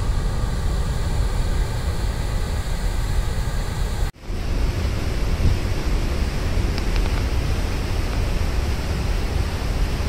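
Water rushing over a reservoir spillway: a steady, heavy rushing noise with no change in pitch. It cuts out for a moment about four seconds in, then carries on the same.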